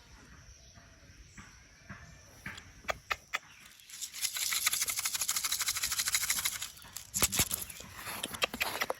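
A bird's wings fluttering rapidly for about three seconds, starting about four seconds in, with scattered clicks and rustles before and after.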